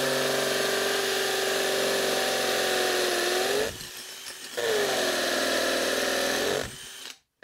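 Craftsman brushless cordless hammer drill driving a 1/2-inch masonry bit into a concrete block, running steadily under load. About three and a half seconds in it winds down while the bit is pulled out of the hole, then spins back up about a second later and keeps drilling before winding down again near the end.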